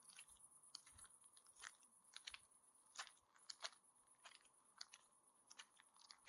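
A grazing horse tearing and chewing grass: short, crisp ripping crunches at an irregular pace, about two a second, over a steady high-pitched hiss.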